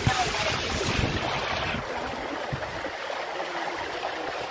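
Rainwater streaming and splashing down stone steps in a downpour, with wind buffeting the microphone. The hiss is brighter for the first couple of seconds, then settles into a steady rush.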